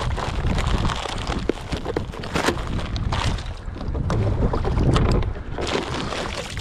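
Wind buffeting the microphone over the sea, with scattered crackles and splashes as a blue nylon drogue (sea anchor) is handled and dropped into the water beside the kayak.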